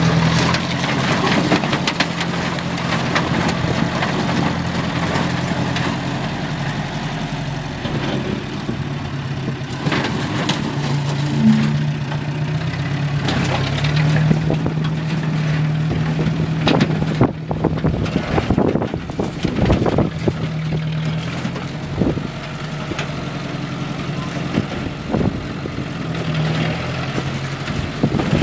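John Deere loader tractor's engine running steadily under light load as it pushes a crumpled pool along the ground, with occasional knocks.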